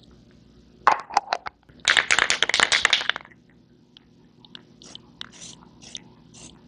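Aerosol can of clear coat being shaken, its mixing ball rattling rapidly for about a second and a half, followed by several short hisses of spray.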